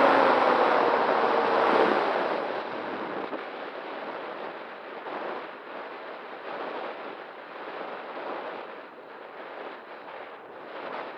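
E-flite Night Radian electric glider in flight: the motor's whine sags and dies away about two seconds in, leaving a steady rush of wind over the airframe and microphone as it glides.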